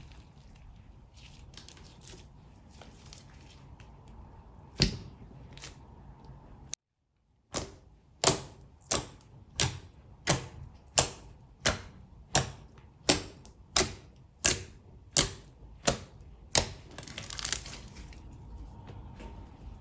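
Slime being handled, then pressed in a steady rhythm, each press giving a sharp pop of trapped air, about thirteen pops at a bit under one and a half a second.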